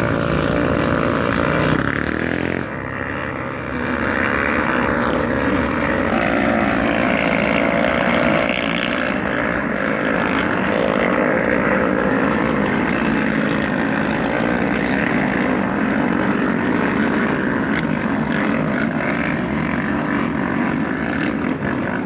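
Several motocross dirt bikes running together as they climb a dirt hill track, their engines overlapping in a continuous buzzing drone that rises and falls.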